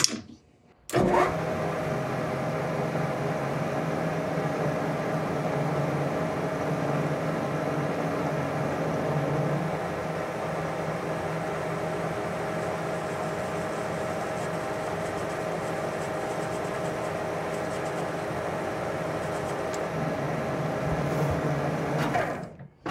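Metal lathe running, turning a small aluminium part held in a square collet: a steady motor-and-spindle hum with a constant whine. It starts about a second in and stops just before the end.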